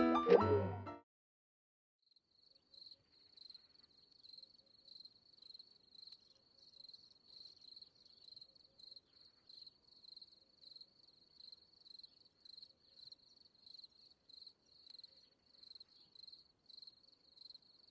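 A music cue dies away within the first second. Then a cricket chirps faintly and steadily, about two short high chirps a second, over an otherwise silent stage.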